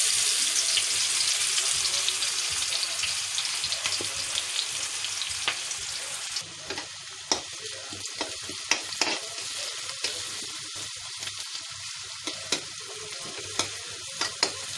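Chopped onion and green chillies frying in hot oil in a steel kadhai: a loud sizzle that eases off over the first several seconds. From about halfway on, a metal spatula clicks and scrapes against the pan as the onions are stirred.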